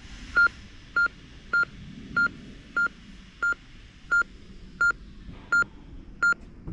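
Cardiac monitor/defibrillator giving its pulse beep, one short single-pitch beep with each heartbeat, about ten beeps spaced roughly two-thirds of a second apart that draw slightly further apart toward the end.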